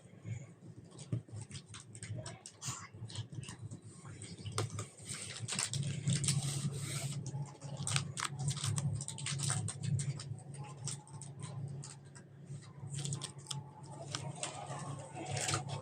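Slime being squished and kneaded by hand: a dense run of irregular wet clicks and pops over a steady low hum.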